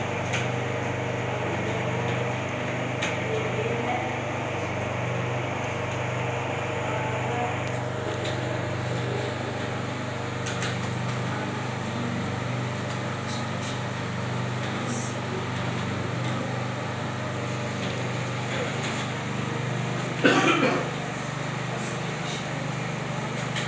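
Steady hum of fans and machines in a room where students are typing, with scattered faint keyboard clicks and one short loud noise about twenty seconds in.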